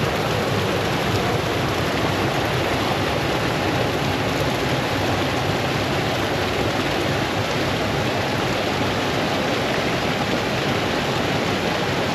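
A brook cascading over stones, a steady, loud rush of running water.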